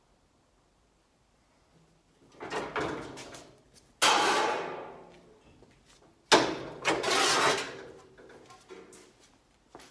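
Thin sheet-metal duct pieces handled at a bending brake, starting about two seconds in. A rustling scrape comes first, then two sudden metallic clatters a little over two seconds apart, each ringing out over a second or so, followed by a few light clicks.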